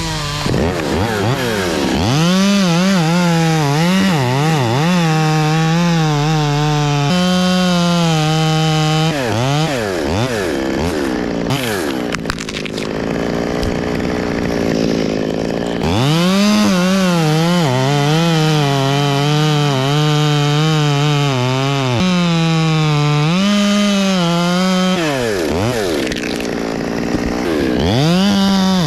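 Two-stroke chainsaw running near full throttle as it cuts into very hard Australian pine wood, its pitch sagging and recovering under load. The revs drop away and climb again several times, with a few seconds of lower, quieter running in the middle.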